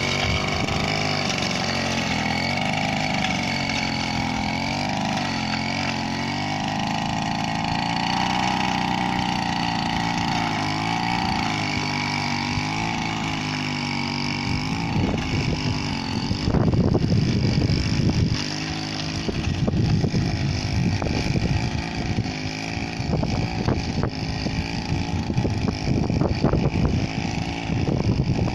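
Small 30cc engine of a rice-paddy power weeder running, its pitch wavering up and down. From about halfway it turns rougher, with irregular louder bursts of churning noise.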